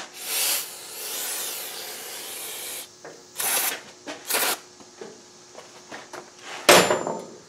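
Aerosol brake cleaner sprayed onto a motorcycle's steel rear brake disc: one long hiss of about two and a half seconds, then two short bursts. A sudden knock follows near the end.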